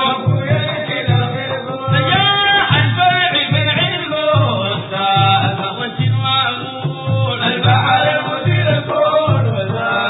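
Sudanese Sufi madeeh, a praise song for the Prophet: men's voices singing over a steady frame-drum beat of about two strokes a second.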